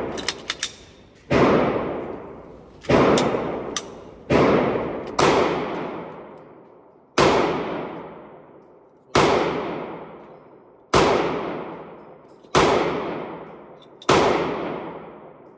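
Nine gunshots fired at a slow, uneven pace, about one to two seconds apart. Each sharp crack is followed by a long ringing echo that fades off in the hard-walled indoor range.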